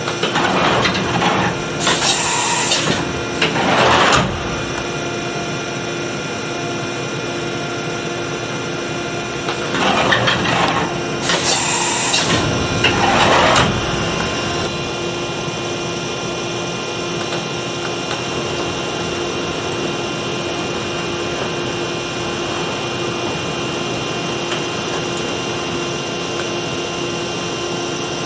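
Okuma MB-5000H horizontal machining center running: a steady machine hum made of several held tones, broken twice by loud, noisy stretches of about four seconds each, the second starting about ten seconds in.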